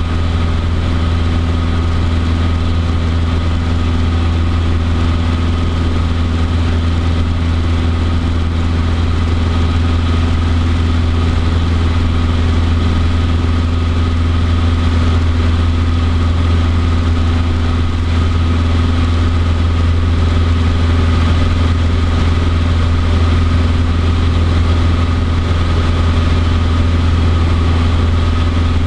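Cessna 150D's four-cylinder Continental O-200 engine and propeller running steadily in flight, heard inside the cabin as an even, unchanging drone.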